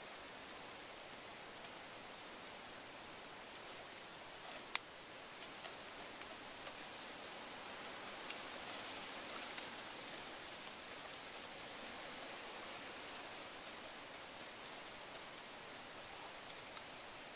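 Light clicks and taps of bamboo skewers threaded with raw shrimp being handled and arranged in a woven bamboo basket, over a faint steady hiss. The sharpest click comes about five seconds in.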